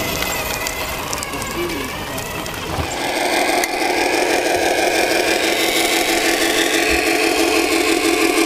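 Electronic diesel-engine sound from a radio-controlled truck's sound module, played through a small speaker: a steady running chug with a fast, even pulse and no deep bass. It starts abruptly about three seconds in.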